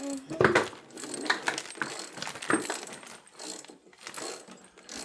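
Small metal hardware clinking and rattling: loose screws and parts being handled, with many light, irregular clicks and knocks.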